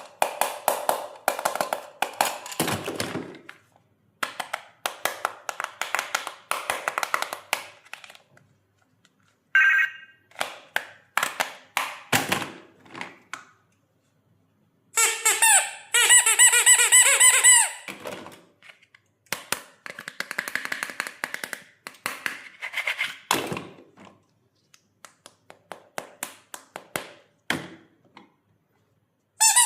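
Plastic toy doctor-kit pieces clicking and clattering as they are handled and unpacked, with short electronic warbling tones about ten seconds in and again for a few seconds from about fifteen seconds.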